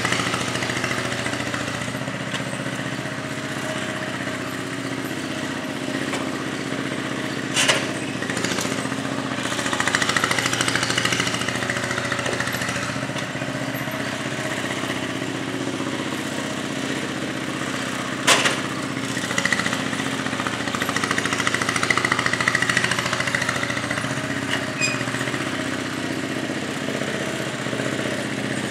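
Sears Suburban garden tractor's engine running steadily as it pushes dirt with its front blade, working harder at times. Two sharp knocks stand out, one about a quarter of the way through and another past the middle.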